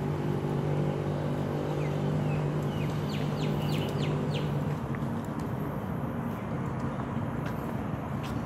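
Steady low hum of road traffic, with a bird chirping a quick run of short high notes in the middle.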